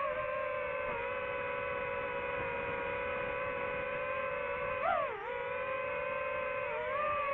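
DJI FPV drone's motors and propellers whining at a steady pitch, several close tones together; the pitch rises briefly, then dips, about five seconds in.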